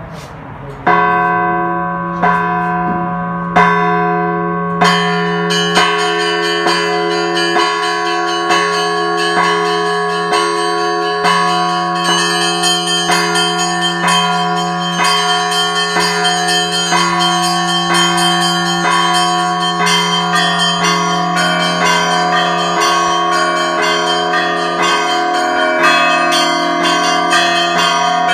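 Russian Orthodox church bells ringing. A few single strokes about a second and a half apart open the ringing, then from about five seconds in many smaller bells join in a fast, dense peal over the lasting ring of the low bell.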